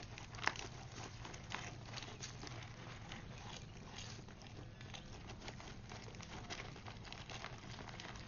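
Deer eating popcorn from a paper bag: faint crunching and nibbling with light rustling of the bag, two sharper crackles in the first two seconds.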